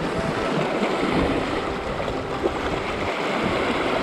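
Sea waves washing and splashing around shoreline rocks, with wind buffeting the microphone. There is a single brief tap about two and a half seconds in.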